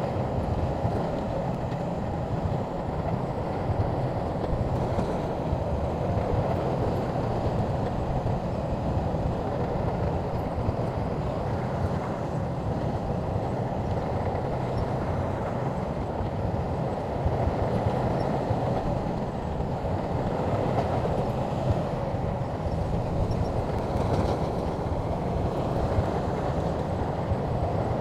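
SHANTUI crawler bulldozer's diesel engine running steadily under load, with the rolling clatter of its steel tracks.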